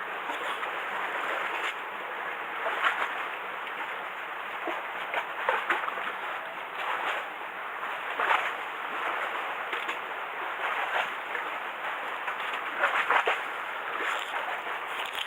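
Sea water washing and lapping against the pier, a steady wash with small irregular splashes.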